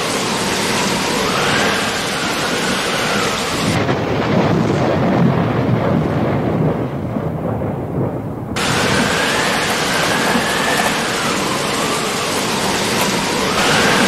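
Rain-and-thunder soundtrack: a steady hiss of rain, giving way to a low rumble of thunder for a few seconds in the middle.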